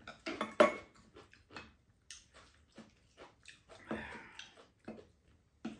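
Mealtime sounds: chopsticks and a wooden spoon clicking against bowls and dishes, with chewing. A short louder sound comes about half a second in and another about four seconds in.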